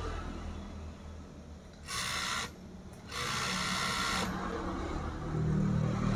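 Industrial overlock (serger) machine stitching fabric in two short bursts, a brief one about two seconds in and a longer one of about a second just after, over the low hum of its motor. This is a test run after the machine's figure-eight drive link (angka 8) was replaced.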